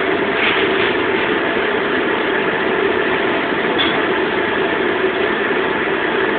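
Steady rushing noise of a commercial wok range's gas burners and overhead exhaust hood running at full heat.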